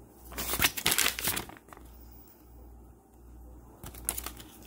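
Paper instruction leaflet rustling and crinkling as it is handled and unfolded, loudest between about half a second and a second and a half in, with a shorter rustle near the end.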